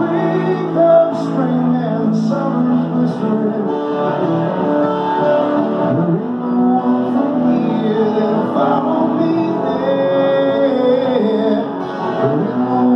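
Solo acoustic guitar strummed steadily, with a man singing over it.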